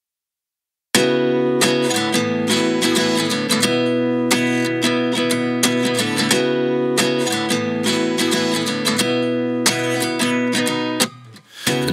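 Background music: an acoustic guitar strumming chords, starting after about a second of silence and dropping out briefly near the end.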